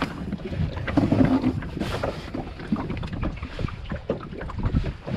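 Irregular knocks and clatter of handling and gear inside a wooden rowing boat, with wind buffeting the microphone.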